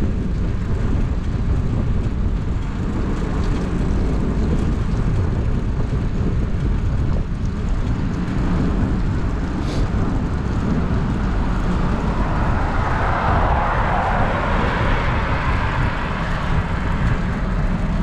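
Wind buffeting the microphone of a camera on a moving bicycle, a steady low rumble mixed with road and tyre hiss. A brighter rushing hiss swells about two-thirds of the way through and fades again.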